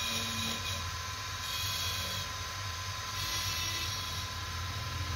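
Belt-driven wood lathe running steadily, a low hum with a thin high whine over it, as a row of wooden top blanks spins on the spindle. A brighter hiss comes and goes twice.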